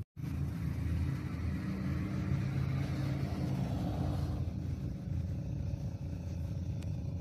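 A motor vehicle engine running with a steady low rumble; a lighter hiss above it dies away about four seconds in.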